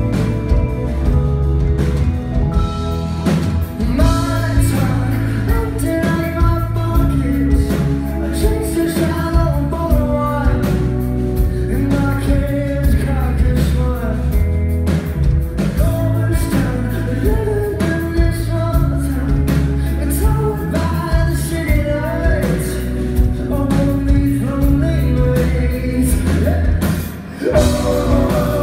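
Live rock band playing: electric guitars, bass and drums with a singer's voice over them, loud and dense, heard from among the audience.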